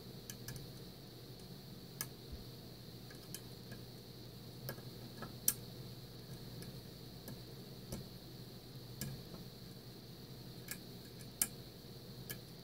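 Small, irregular metallic clicks of a lock pick working the pins of a Mul-T-Lock Interactive cylinder held under tension, about a dozen spread out, the sharpest about halfway through and again near the end, over a steady low hum.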